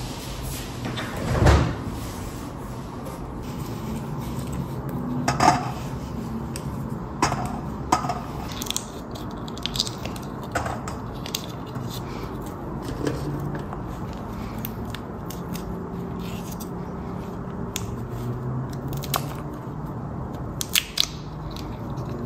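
Fresh peas being shelled by hand: pods cracking as they are split open, and peas clicking into a stainless steel mesh colander, heard as scattered short sharp clicks. A dull thump about a second and a half in is the loudest sound.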